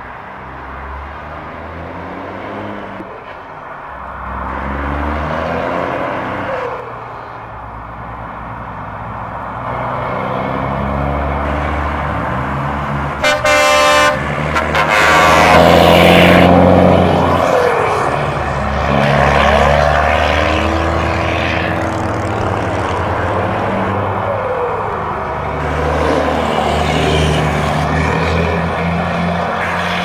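Diesel truck engines on open straight-pipe exhausts, revved up and down several times, and a truck horn sounding for about a second near the middle. The loudest revving comes just after the horn.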